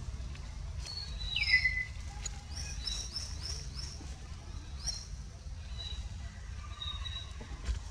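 Wild birds chirping: scattered short high chirps, a quick run of rising chirps about three seconds in, and a louder falling squeal about one and a half seconds in. A steady low rumble runs underneath.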